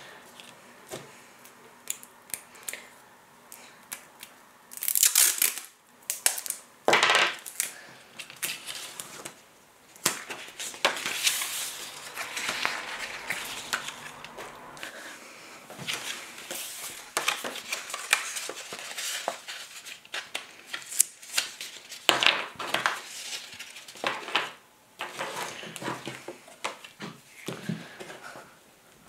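Paper being handled on a wooden table: irregular rustling and crinkling of a long paper strip as it is slid, bent and curled into a band, with occasional light taps and knocks.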